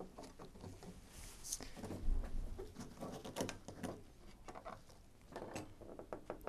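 Faint, scattered ticks and rustles of gloved hands twisting thin wires that hold a backing plate in a hole in a fibreglass hull panel, with a soft low thump about two seconds in.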